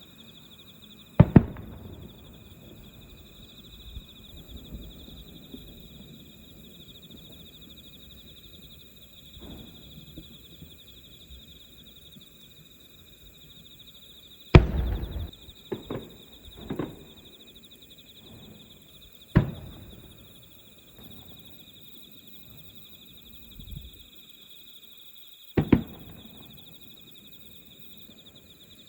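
Fireworks shells bursting in the distance: scattered sharp booms, the loudest about halfway through with a few smaller pops straight after it, over the steady high trilling of insects.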